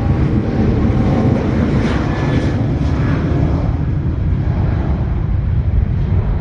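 Jet airliner engines, a loud deep rumble with a faint whine near the start.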